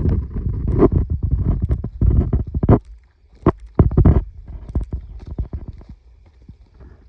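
Irregular, uneven thumps and rustling close to the microphone, the sound of someone moving and handling things at close range. Heavy for the first few seconds, then fading to light rustling after about four seconds.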